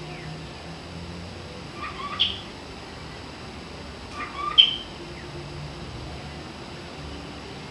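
Cockatiel giving two short chirping calls, one about two seconds in and a louder one about four and a half seconds in.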